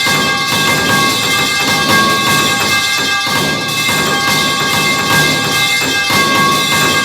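The metal pipe falling sound effect stacked into a dense, continuous run of overlapping clangs, with the pipe's metallic ring held steadily throughout and no gaps between hits.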